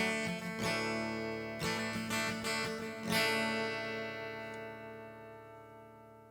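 The closing bars of a song on guitar: a few strummed chords, then a final chord left ringing and slowly dying away.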